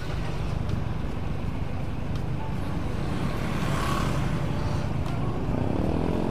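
Motorbike riding along a road: a steady engine rumble mixed with wind buffeting the microphone.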